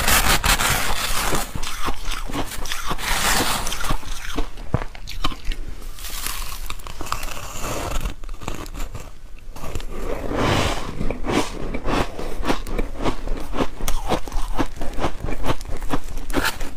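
Close-miked crunching of soft white ice being bitten and chewed, with a metal scoop digging and scraping through a heaped mound of it; a dense crackle of small crunches throughout, thickening at intervals.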